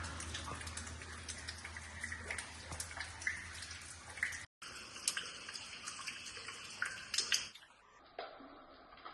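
Running and dripping water, a steady rush dotted with many small splashes and drips. It breaks off in a brief dropout about four and a half seconds in, and switches to a duller, quieter recording near the end.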